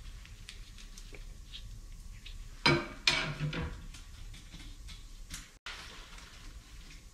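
Metal tool clanking and tapping against an LS engine block in a boring machine's fixture as it is shimmed and set up, with light ticks and two sharp knocks close together about three seconds in.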